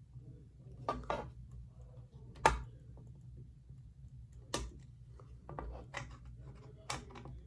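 Ceiling fan motor humming low and steady, with irregular sharp clicks and knocks over it, the loudest about two and a half seconds in.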